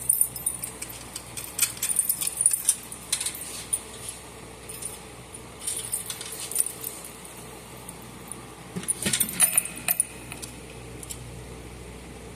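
Clinks, clicks and rattles of metal and plastic parts being handled while a fire alarm pull station is fitted onto its mounting. They come in four short bunches, over a faint steady hum.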